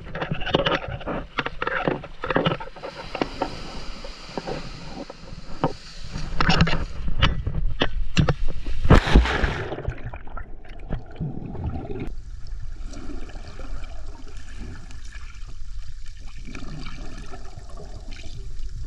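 Water splashing and sloshing against an action camera at the surface, with a loud splash about nine seconds in. After that the sound turns dull and muffled, with bubbling and gurgling as the camera is underwater.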